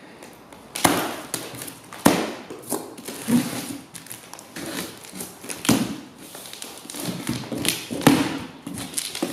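Cardboard box being cut open with a box cutter and its flaps worked loose: scraping and rustling of cardboard and tape broken by sharp knocks and thuds, the loudest about two seconds in and again near the end.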